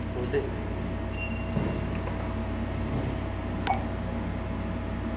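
Steady low hum in a small room, with a few light clicks and taps from items being handled on a hard bench.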